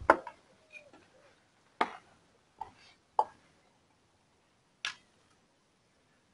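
A dog foraging nose-first in a fleece snuffle mat for treats: about five short, sharp clicks, spaced irregularly over a few seconds.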